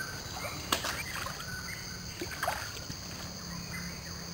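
Muddy stream water rushing and splashing, under a steady high insect drone, with one sharp click a little under a second in.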